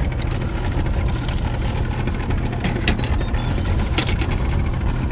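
Steady low rumble of the boat's motor idling, with a few light clicks as a tape measure is pulled out and laid down.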